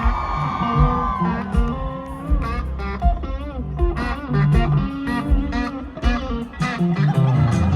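Live country band playing an instrumental break: an electric guitar lead with held, bending notes, then a quicker run of notes, over bass guitar and drums.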